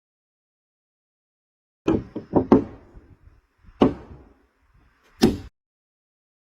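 A few sharp knocks or thumps: a quick cluster of four about two seconds in, then two single knocks about a second and a half apart, with dead silence before and after.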